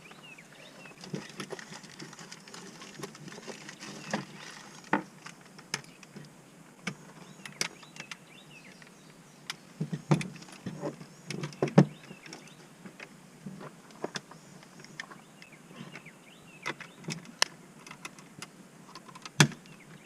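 5.45x39 cartridges being pressed one at a time into rifle magazines by hand: irregular small metallic clicks and clinks, a few louder snaps about halfway through.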